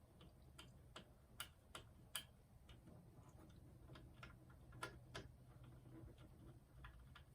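Faint, irregular small clicks and ticks of a turntable's cue-arm lift part being turned and worked loose from the tonearm base.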